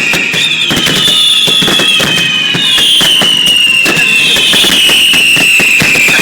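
Fireworks finale at close range: a dense, loud string of rapid bangs and crackling bursts. A high whistling tone keeps sliding downward and starting again over the bangs.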